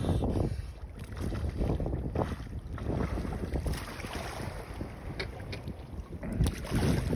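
Wind buffeting the microphone: an irregular, gusty low rumble that swells and drops, with a few faint ticks.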